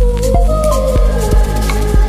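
Electronic background music with a steady drum beat, about three hits a second, under sustained synth tones that slide in pitch.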